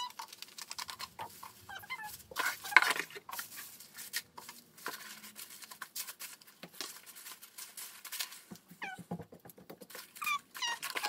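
Plastic bubble wrap and tissue paper crinkling and rustling as they are cut, folded and tucked into a cardboard mailer box, with a few short high squeaks among the crackles.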